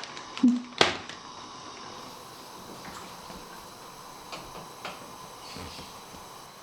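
A sharp knock like a cupboard door or utensil about a second in, then a steady faint hiss with a few light clicks, typical of kitchen handling while cooking.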